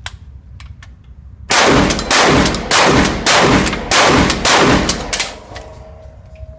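ATI TAC PX2 pump-action shotgun fired in quick succession, about seven shots roughly six-tenths of a second apart, pumped between each shot. Each blast echoes off the walls of an indoor range.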